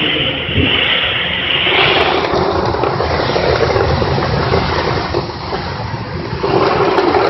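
Popcorn production line machinery running steadily, a loud, even mechanical noise that shifts in tone about two seconds in.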